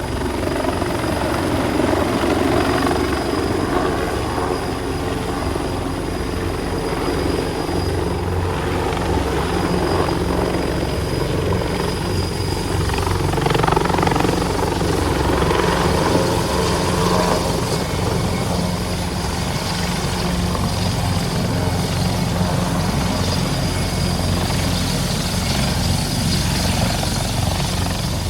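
A steady, loud machine drone with strong low rumble, swelling slightly a few times.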